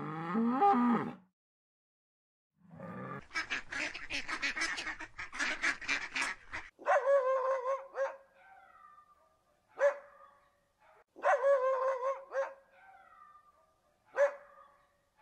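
A bison's low grunting call cuts off about a second in. After a short silence, a Pomeranian vocalises: first a rapid stuttering run of yowling pulses, then a series of short, steady-pitched whining calls, each a second or less.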